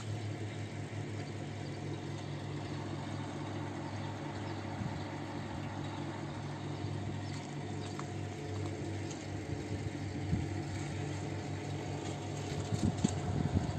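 Car engine idling steadily, turning the air-conditioning compressor pulley on its newly fitted bearing, with a few light rattles near the end.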